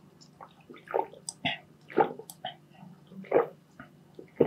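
A person drinking in close-up, several separate swallowing gulps spaced about half a second to a second apart.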